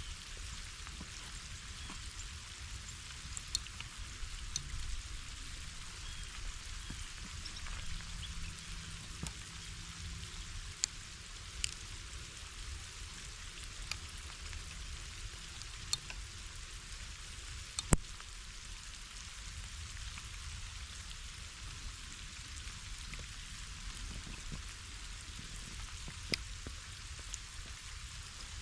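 Food frying in a pan: a steady sizzle with scattered sharp pops.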